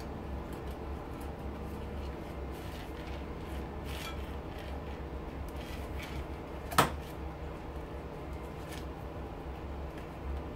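Scattered light knocks and clatter from a metal pot light housing being handled on a metal workbench, with one sharp metallic knock about seven seconds in. A steady low hum runs underneath.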